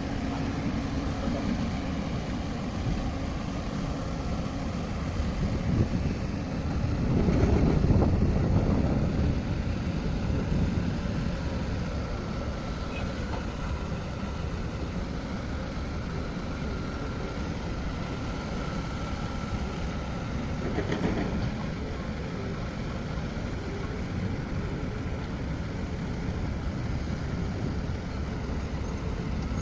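Diesel engine of heavy earthmoving machinery running steadily, with a faint steady whine above it; the engine grows louder for a few seconds about a quarter of the way in, as if working under load, then settles back.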